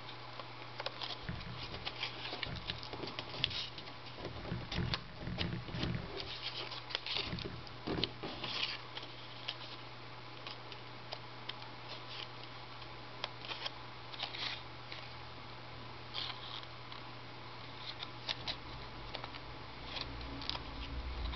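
A sheet of origami paper folded and creased by hand: irregular crinkles and crackles, busiest in the first half and sparser later, over a steady low hum.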